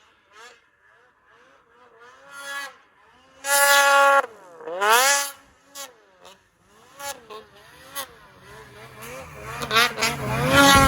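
Snowmobile engine revving hard in deep powder, its pitch climbing and dropping again and again, with a loud exhaust can. The loudest revs come about three to five seconds in, and a sled runs up close near the end.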